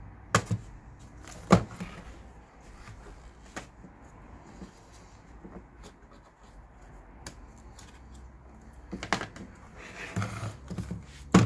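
Plastic clips of an instrument-cluster back cover snapping loose as they are pried with a pick: a couple of sharp clicks in the first two seconds. Then the plastic housing and circuit board are handled, with clattering and knocks that are loudest near the end.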